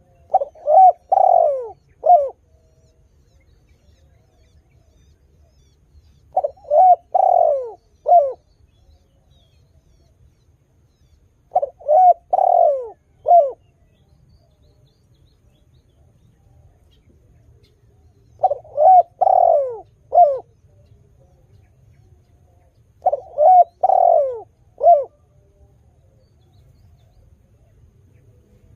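Spotted dove cooing: five phrases, each about two seconds of a few quick falling coos and a short final note, repeated every five to six seconds.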